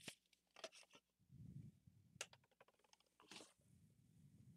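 Near silence, broken by a few faint clicks and soft handling noises from the cardboard collection box and its booster packs being handled.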